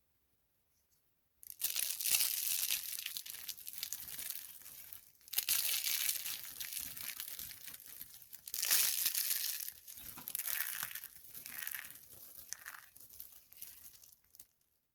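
Dry soap being crushed and crumbled, a crisp crunching and crackling. It starts about a second and a half in, comes in several surges, and stops just before the end.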